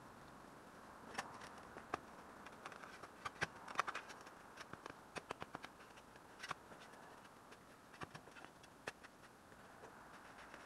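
A shovel digging into thin, stony soil: scattered faint clicks and scrapes, several in quick clusters, as the blade works against stones and roots.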